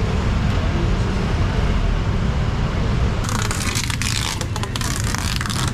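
Steady low rumble of street traffic. From about three seconds in, a dense crinkling and scraping of plastic wrapping as a wrapped package is handled and tied down with twine.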